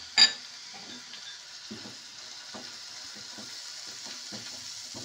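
A tomato-and-spice masala sizzles steadily in mustard oil in a frying pan while a spatula stirs it, scraping and knocking against the pan about twice a second. A sharp clink of a glass bowl being set down on the counter comes right at the start and is the loudest sound.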